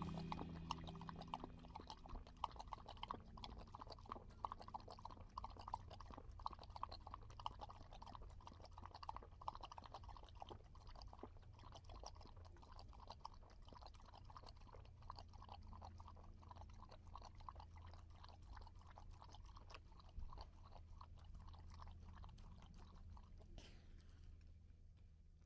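A dog lapping water from a collapsible bowl: faint, quick wet laps in a steady rhythm over a low steady hum.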